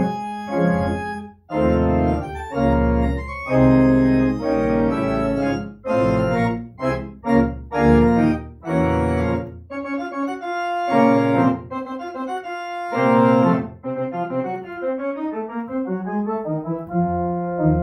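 Three-manual organ playing a slow, solemn elegy in sustained chords, with a deep pedal bass under the first half. After about ten seconds the bass drops away and the chords grow quieter and thinner; a low held note comes in near the end.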